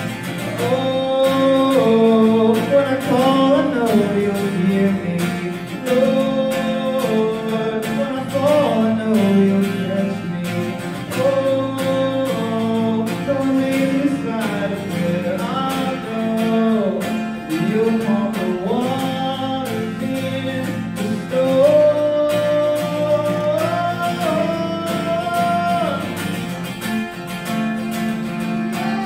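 A man singing a slow worship song into a microphone while strumming an acoustic guitar.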